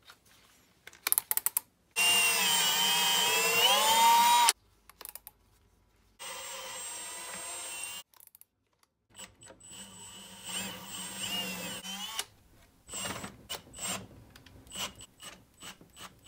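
Milwaukee cordless drill with a twist bit drilling through the side of a wooden box: a loud run of about two and a half seconds whose pitch wavers as the speed changes, then a shorter, quieter run. After that come rougher irregular grinding and scattered clicks and scraping as the box is handled.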